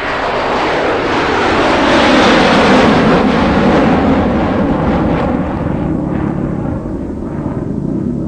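Road noise on a moving motorcycle: a loud rush of wind and engine that swells over the first two to three seconds and then eases off, with a steady low engine hum near the end.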